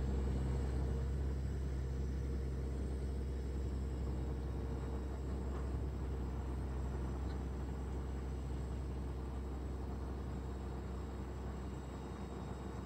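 Tractor engine running steadily as it drives up a silage pile, a low, even rumble that fades a little toward the end.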